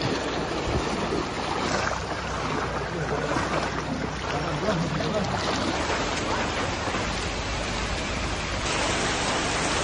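Floodwater rushing steadily, a constant noise of moving water. A low steady hum runs under it through the first half.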